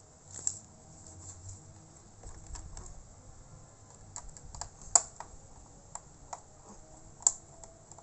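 Scattered light clicks and taps of hands working on a laptop's plastic case and its small screws during disassembly, with three sharper clicks: about half a second in, around five seconds in and a little after seven seconds.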